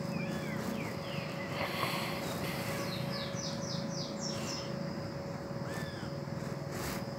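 Wild animals calling: a few short chirping glides, then a run of about six quick falling whistled notes about three seconds in, and a single arching call near the end.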